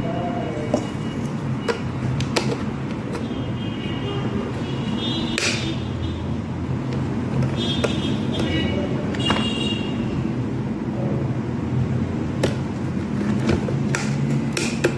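Occasional sharp plastic clicks and taps as a small kettle switch and its wires are handled and pushed into the plastic kettle handle, over a steady low background rumble. Brief high-pitched tones come twice in the middle.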